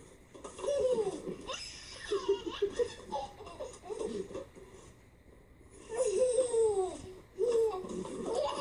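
Baby laughing in repeated bursts, with a short lull a little past halfway.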